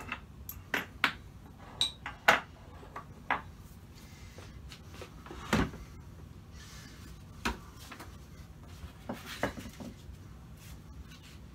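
Loose lathe parts and accessories being handled and set down on a table: a string of scattered sharp clicks and knocks, the loudest a little over two seconds in.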